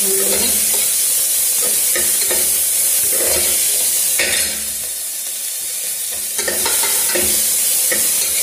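Chopped onions, green chillies and cashews sizzling in hot ghee in an aluminium pressure cooker, while a metal spoon stirs and scrapes against the pot in repeated strokes. The sizzle and scraping drop away for about two seconds around the middle, then pick up again.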